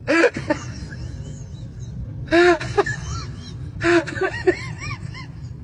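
Three or four short, high wailing cries whose pitch rises and falls, like a crying baby, imitating a baby for a fake-baby prank. Under them runs the steady low rumble of a moving train carriage.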